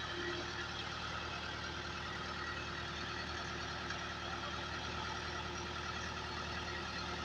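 Concrete mixer machine running steadily, its engine humming without a break.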